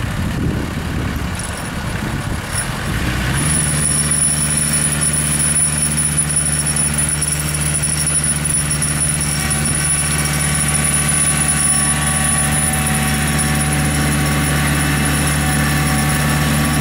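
Kubota compact tractor's diesel engine running. About three seconds in it revs up and then holds a steady, higher note as the tractor pulls a loaded hay wagon away.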